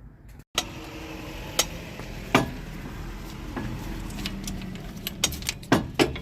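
Sharp metallic clinks and knocks of hand tools and steel suspension parts being handled, about six separate strikes with the loudest pair near the end, over a steady low background hum.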